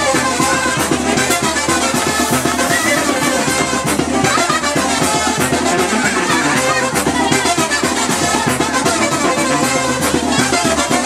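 Loud dance music with brass and drums over a party sound system: an instrumental stretch of a Spanish-language song between its sung verses.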